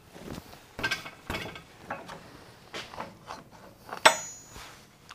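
Irregular metal clicks and clanks as the aluminium mold and vise of an Emco benchtop injection molder are handled, with one sharp, ringing clink about four seconds in.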